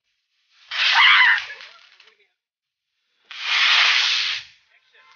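Hissing of a small ground firecracker spraying sparks, in short bursts about a second long, the louder and longer one about three seconds in.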